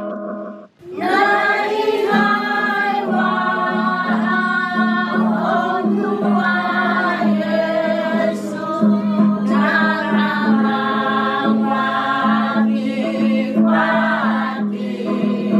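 An elderly mixed choir singing a hymn in the Klamu language, coming in about a second in after a brief pause, over a steady low sustained note.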